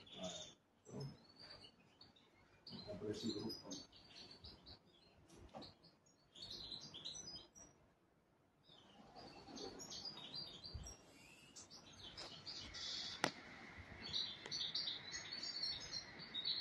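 Small bird chirping and twittering in short repeated phrases, with a single sharp click about thirteen seconds in.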